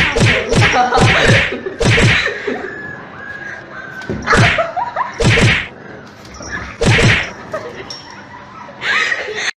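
Small puppy giving short, sharp yaps at a kitten. Several come in quick succession in the first two seconds, then single yaps every second or two.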